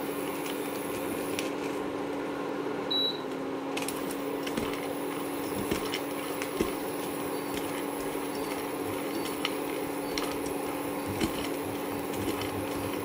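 Chopped cashews and almonds frying in a little ghee in a steel pan, stirred with a spatula: a soft steady sizzle with a few light scrapes and taps, over a steady low hum.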